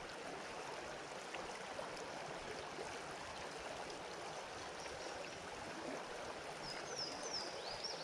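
Creek water running steadily, with a few short high chirps near the end.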